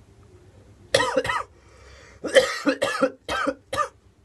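A person coughing in two fits: two harsh coughs about a second in, then, after a short pause, four more coughs.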